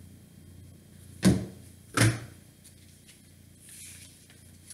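Two sharp handling knocks about three-quarters of a second apart, with a faint rustle near the end.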